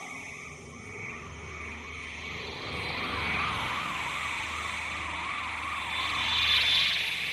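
Sci-fi flying-saucer sound effect: a warbling electronic tone that wavers up and down two or three times a second over a low hum, with a hissing wash that swells near the end.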